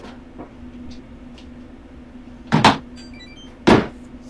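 Two short handling noises from a cleaning ASMR clip, about a second apart, over a steady low hum.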